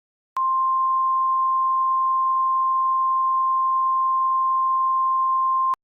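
Emergency alert attention tone: one steady, pure, single-pitch tone near 1 kHz that starts suddenly and cuts off suddenly after about five seconds, announcing the next alert message.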